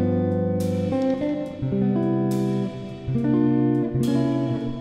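Background music: plucked guitar playing held notes, with a new chord struck about every second and a half.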